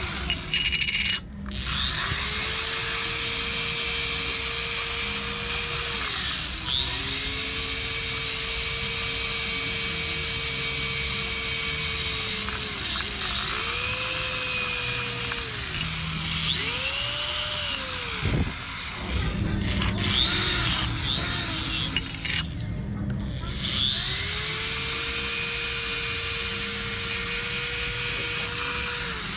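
ACZ electric drill boring into the metal motor end cover of an old electric fan. It runs in about five bursts: each time the motor whines up, holds steady for a few seconds, and winds down when the trigger is let go, with two shorter bursts in the middle.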